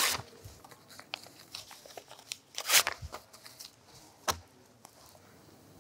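Sheets of paper rustling as they are handled and leafed through, in short scattered crackles. The loudest rustle is about three seconds in, followed by a single sharp tap a little over four seconds in.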